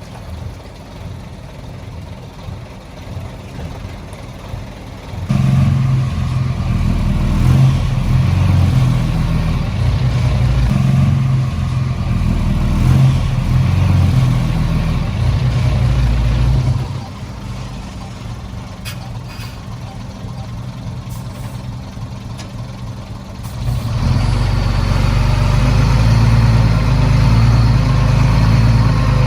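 Komatsu D20P bulldozer's diesel engine running, louder under load from about five seconds in, easing back to a lower level partway through, and rising to working revs again near the end.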